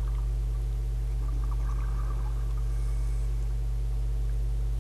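Steady low droning hum with many evenly spaced overtones, unchanging in pitch and level.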